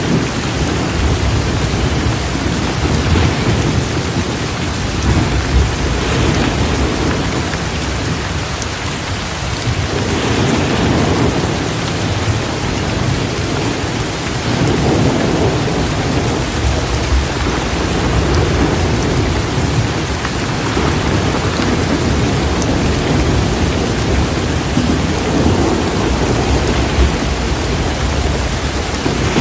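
Heavy rain pouring steadily, with thunder rumbling low and continuously beneath it, swelling and easing every few seconds.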